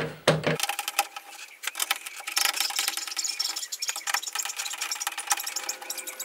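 Dense metallic clicking and rattling from a hand tool working the small bolts that hold an interior door handle in a car door.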